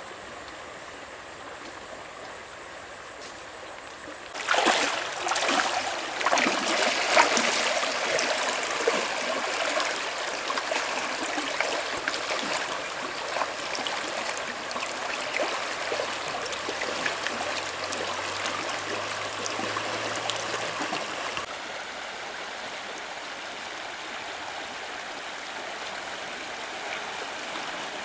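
Shallow stream rushing over stones, with splashing from a person wading through it, loudest about four to eight seconds in. A little past two thirds of the way through, the water settles to a steadier, quieter rush.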